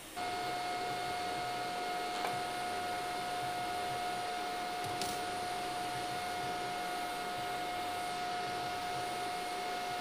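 A steady electric motor whir with one fixed tone, as of a fan, switching on suddenly just as the TIG arc goes out. Two faint ticks come during it.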